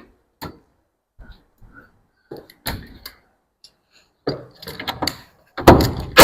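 Scattered knocks and taps of wooden boards and tools being handled, building to a loud bang near the end that rings on briefly.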